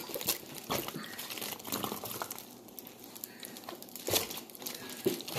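Plastic crinkling as it is handled, with a few sharp clicks and knocks scattered through.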